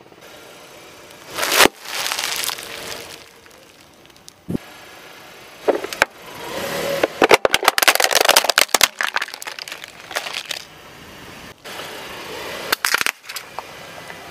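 A car tyre rolling over and crushing brittle plastic objects on asphalt: a string of sharp cracks and crunches, loudest and most crowded about seven to nine seconds in.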